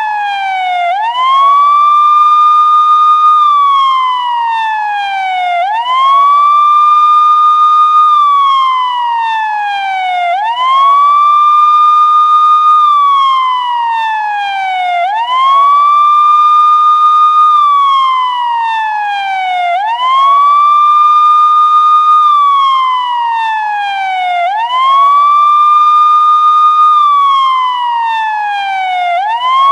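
Police siren sounding a loud, slow wail. Each cycle's pitch rises quickly, holds briefly at the top, then glides slowly back down, repeating evenly about every four and a half seconds.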